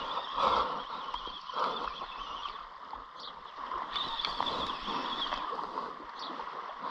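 Spinning reel being cranked to wind in a hooked snapper, a steady whirr that swells roughly with each turn of the handle.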